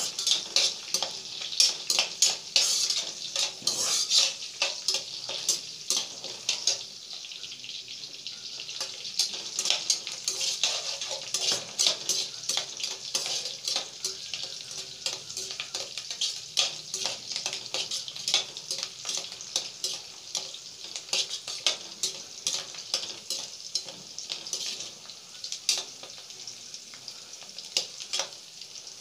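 Sliced onions and green chillies sizzling in hot oil in a non-stick pot, a steady frying hiss. A spatula stirs the pan, adding frequent short clicks and scrapes.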